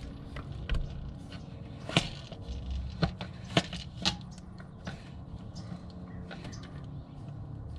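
Hand-operated gear oil pump being worked to fill a VW Beetle transaxle: a string of irregular plastic clicks and knocks, roughly once a second, over a low steady hum.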